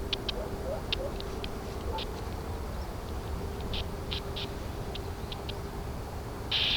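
Short, high chirps of small birds scattered over a steady low background rumble with a faint steady hum, and a brief hissing burst near the end.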